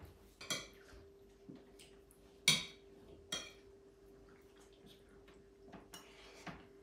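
Dishes and cutlery clinking: a handful of separate knocks and clinks, the loudest about two and a half seconds in, over a faint steady hum.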